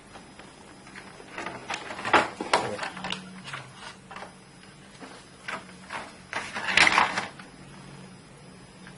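Scattered clicks, knocks and rustles of TV parts being handled while the speakers and their wires are fitted into the set, loudest about two seconds in and again about seven seconds in. A faint low hum runs underneath.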